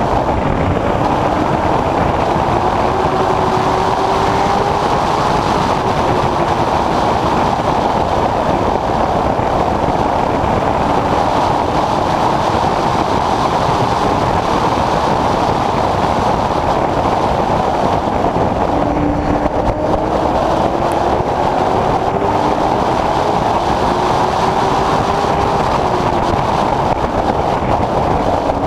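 Late model stock car's V8 engine running at racing speed, heard from inside the car over heavy road and wind noise. The engine note climbs slowly twice, a few seconds in and again past the middle, as the car accelerates down the straights, and drops back between.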